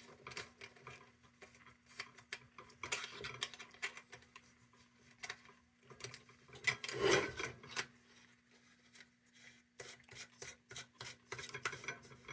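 Intermittent rubbing and scraping with light clicks as a metal lantern is handled, with one louder scrape about seven seconds in, over a faint steady hum.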